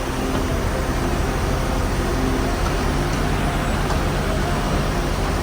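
Airport apron shuttle bus running steadily: an even engine hum with road noise.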